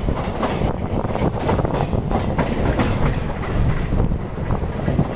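Suburban electric local train running along the track, heard from its open doorway: a steady rumble with rapid, irregular clattering of the wheels over the rail joints.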